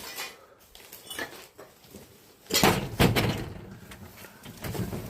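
Clinks and clatter of loose debris and broken glass, with a few light clicks and then a dense burst of clattering about two and a half seconds in.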